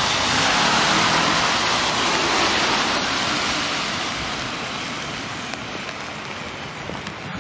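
Heavy rain and car tyres hissing on a wet street: a steady noise that eases a little about halfway through.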